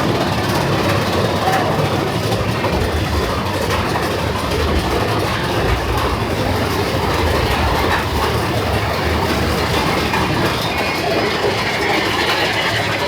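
Big Thunder Mountain Railroad mine-train roller coaster running along its track, its cars rolling and rattling in a steady, loud rush of noise.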